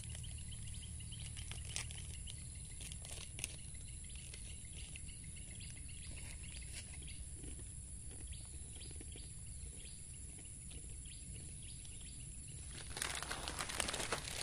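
Quiet outdoor swamp ambience: a steady high hiss and low rumble with faint, scattered chirps and ticks. About thirteen seconds in, louder rustling and handling noise starts.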